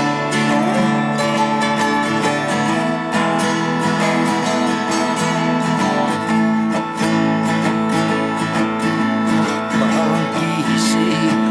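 Twelve-string acoustic guitar strummed steadily through a chord progression in the key of A, as an instrumental passage with no singing.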